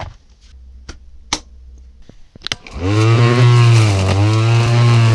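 A few sharp clicks as a battery is handled at its charger, then a cordless electric string trimmer starts about three seconds in and runs with a steady motor hum, its pitch dipping briefly as it cuts grass.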